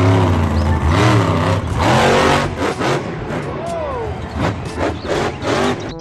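Monster truck engine revving hard and repeatedly, its pitch swinging up and down, with arena crowd noise behind it.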